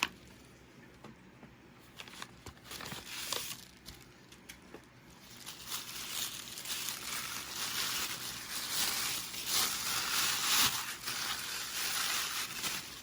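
Packaging crinkling and rustling as a mailed package is opened. There are a few faint handling clicks at first, then steady, louder crinkling from about five seconds in.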